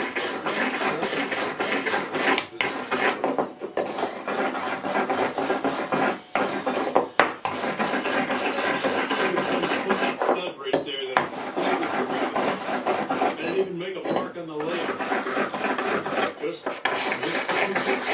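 Grinder beveling the edges of small aluminum pieces: a continuous abrasive grinding with a thin high whine, stopping briefly several times as the work is repositioned.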